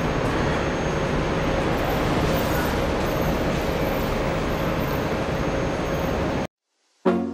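Steady noise of a moving vehicle, an even rumble and hiss with no change in pace. It cuts off abruptly near the end, and music with struck chords begins just after.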